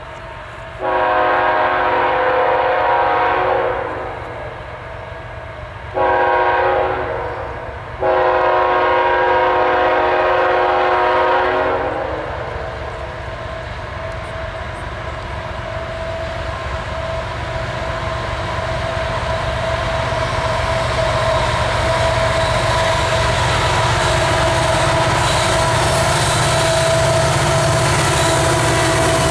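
Locomotive air horn on a GE ET44C4 sounding three blasts at a grade crossing: about three seconds, then about two seconds, then a long one of about four seconds. After the horn stops, the leading diesel locomotives' engines rumble, growing steadily louder as the units pass close by at the top of a grade.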